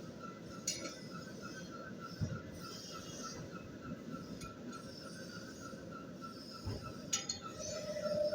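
Metal machining on a gate valve: a faint high chirp repeating about four times a second, with two sharp metallic clinks, one near the start and one near the end.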